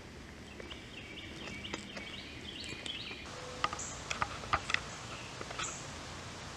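Outdoor ambience: a bird singing a series of short chirps that step upward in pitch during the first half, then a few sharp clicks over a steady background hiss.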